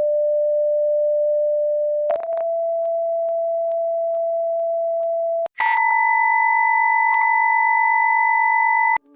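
Steady electronic sine-wave tones, one held pitch after another, stepping up twice. A low tone changes with a click to a slightly higher one about two seconds in. After a brief break at about five and a half seconds a higher, brighter tone takes over, and it cuts off just before the end.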